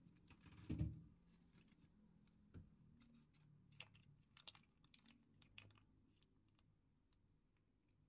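Faint handling noises: a soft thump about a second in, then scattered light clicks and taps for several seconds before it goes quiet.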